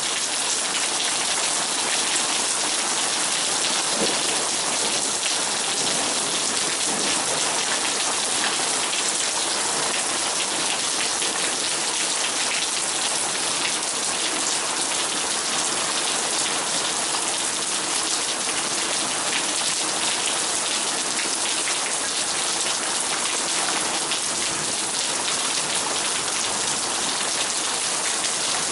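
Heavy rain pouring steadily, a dense patter of drops hitting surfaces.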